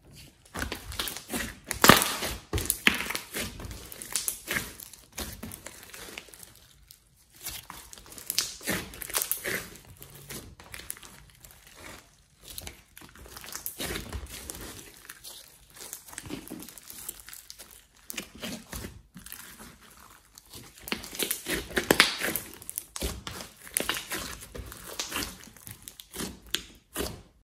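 Hands squeezing, stretching and poking a large lump of clay slime studded with floam beads: a dense, irregular run of small sticky clicks, pops and squelches, loudest about two seconds in and again around twenty-two seconds in.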